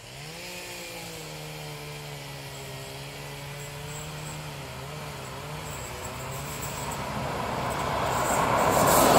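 ÖBB class 2068 diesel-hydraulic locomotive approaching: its diesel engine's drone rises in pitch about half a second in, then holds steady. It grows steadily louder, with a broad rushing noise building over the last couple of seconds as it comes close.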